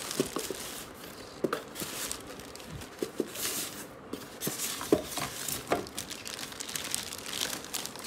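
Clear plastic wrapping crinkling and rustling as a packed appliance is handled in its cardboard box, with scattered short knocks from the box and polystyrene packing blocks.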